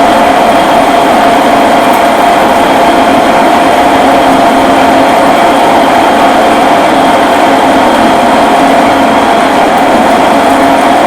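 Metal lathe parting off a thick bar of hard steel with a hand-fed indexable-insert parting tool: a loud, steady cutting noise with a constant tone, the cut going smoothly without chatter.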